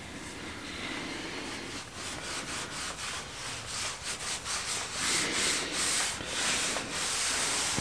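A cloth rag rubbed back and forth over a hardwood slatted platform, wiping on boiled linseed oil, in a run of short repeated strokes that get louder from about five seconds in.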